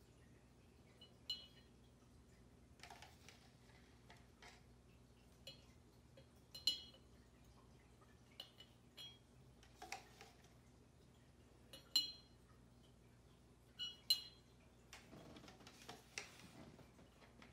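A metal spoon clinking lightly against a glass jar as liquid is spooned in, a series of short ringing taps a few seconds apart, the loudest about twelve and fourteen seconds in. Near the end comes a longer soft rustle of the plastic cup being handled.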